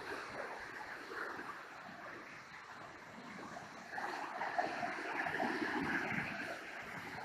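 Niagara River white-water rapids rushing and churning: a steady rush of water that swells louder about four seconds in.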